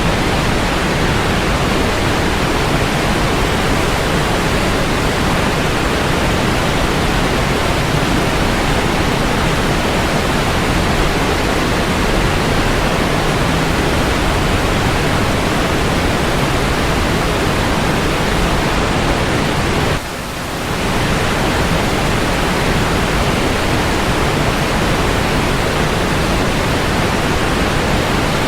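Niagara Falls: a steady, dense rush of falling water, like white noise. It dips briefly about twenty seconds in, then comes back.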